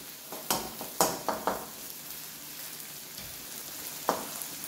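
Okra and carrots with onion, scotch bonnet pepper and scallion sizzling as they are dry-fried in a nonstick wok. A wooden spoon stirring them knocks and scrapes against the pan a few times in the first second and a half and once near the end.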